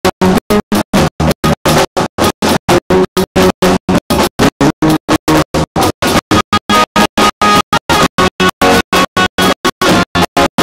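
Live band music with keyboards, chopped up by regular drops to silence about four or five times a second, so the music stutters on and off.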